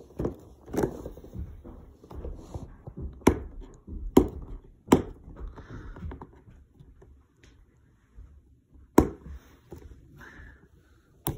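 A cardboard action-figure box with a plastic window being handled and opened: rustling and scraping of packaging, broken by about six sharp taps and knocks, the loudest about nine seconds in.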